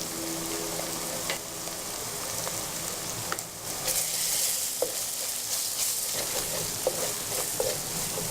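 Food sizzling in hot oil in a pan while it is stirred, with a few sharp clicks of the utensil against the pan.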